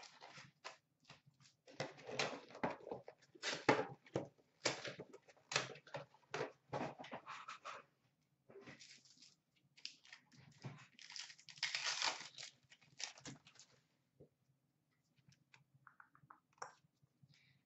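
Hockey card pack wrappers being torn open and crinkled by hand, a run of quick irregular rips and rustles that thins out to a few light rustles about fourteen seconds in.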